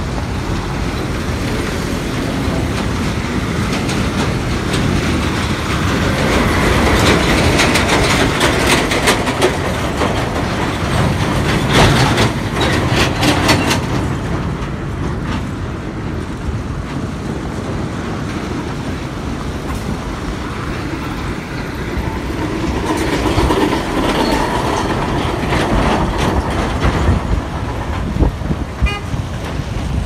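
Busy road traffic: cars, pickups and trucks driving past on a rough, dusty road, with a vehicle horn tooting. The traffic noise swells and grows busier in the middle.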